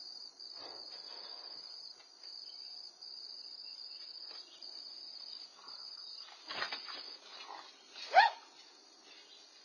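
Insects trilling in a steady high pulse that breaks off every second or so, then scuffling and a short, sharp high-pitched shriek about eight seconds in, the loudest sound.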